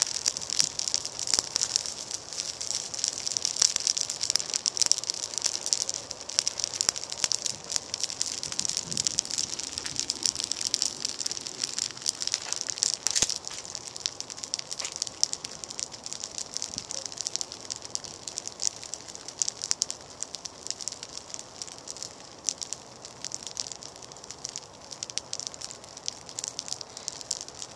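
Evergreen Christmas wreath burning: dense, rapid crackling and hissing as the needles catch, thinning out after about halfway as the flames die down. It burns this fast because it is dry, the sign of an unwatered tree.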